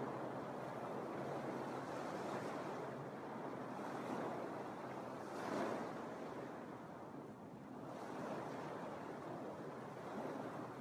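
Small Lake Michigan waves washing onto a sandy beach, the wash swelling and fading every few seconds, with one louder splash about five and a half seconds in.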